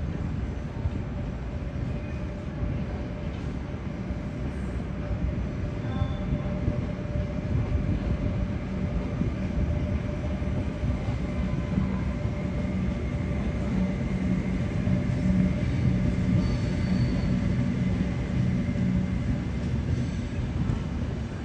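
A train running in the station: a steady low rumble with a constant hum, a little stronger in the second half.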